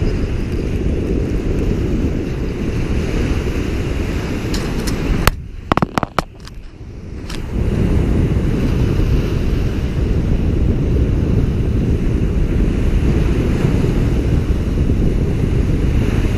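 Wind buffeting the microphone, a loud steady low rumble, over small waves breaking on the shore. About five seconds in the rumble drops away for about two seconds and a few sharp clicks are heard, then it comes back.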